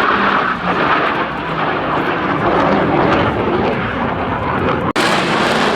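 F/A-18 Hornet jet engines: a loud, steady jet roar as the aircraft passes, broken by a brief cut about five seconds in before the roar carries on.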